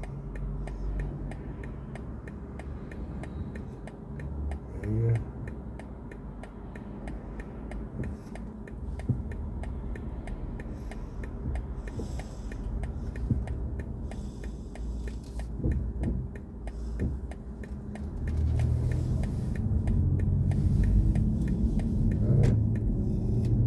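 BMW i4 M50 electric car driving, with a steady low tyre and road rumble and no engine sound, growing louder about three-quarters of the way through. A faint, regular light ticking runs underneath.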